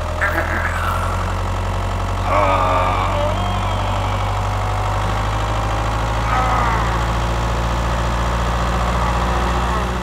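Tractor engine running steadily with a low drone. Brief high-pitched vocal chirps come over it three times.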